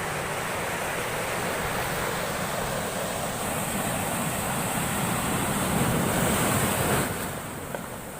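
Heavy storm surf breaking and rushing ashore in a steady roar, swelling louder toward the last couple of seconds, then easing off.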